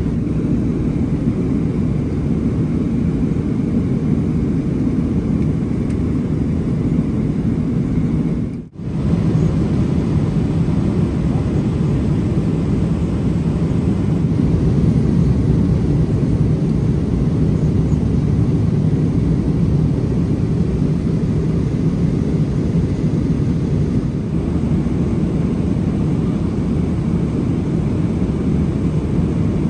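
Steady, low cabin drone of a Boeing 777-300ER in cruise, airflow and engine noise heard from inside the economy cabin. It drops out for a moment about nine seconds in.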